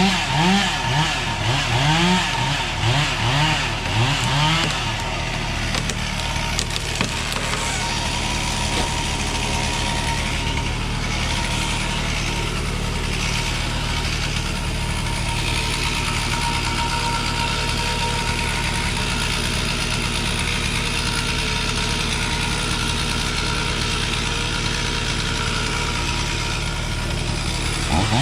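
Chainsaw revved in short repeated bursts for the first five seconds or so, then a steady engine drone; the saw revs up again right at the end.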